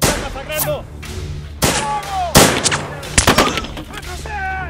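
Battle gunfire from rifles and revolvers: scattered single shots, the loudest a little over two seconds in and a quick cluster of them about three seconds in. Men are shouting between the shots.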